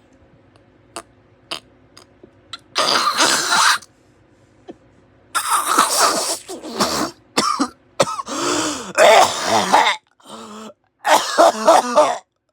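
A man in a loud, repeated coughing fit after taking a hit, coming in four long bouts of hacking coughs. A few faint clicks come before it in the first two seconds.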